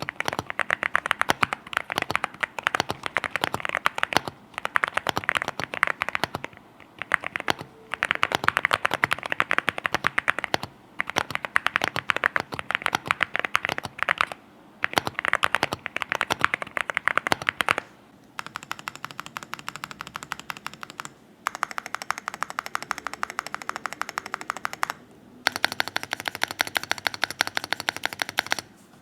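Fast typing on an Akko MU01 wooden-case 65% mechanical keyboard with V3 Piano Pro switches, an FR4 plate and MOA-profile keycaps. Keystrokes come in quick runs with short pauses, and the sound is somewhat deep, not clacky. For several seconds past the middle the typing is quieter.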